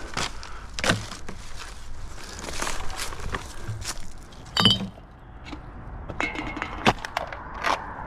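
Footsteps and rustling at the roadside with scattered knocks and sharp clinks of litter being picked up and collected, including one brief ringing clink about halfway through.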